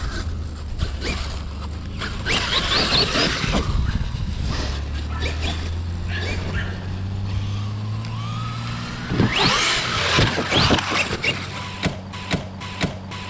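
Electric motor of a Traxxas RC monster truck whining as the truck is driven hard across grass, rising and falling in pitch with the throttle. A few sharp knocks come near the end.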